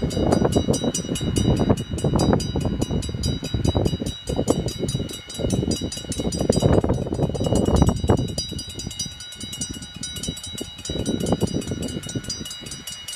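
Warning bells of a Dutch AHOB automatic half-barrier level crossing ringing in a rapid, steady beat, several strikes a second, sounding because a train is approaching. Gusts of wind buffet the microphone and are the loudest thing, easing off in the last few seconds.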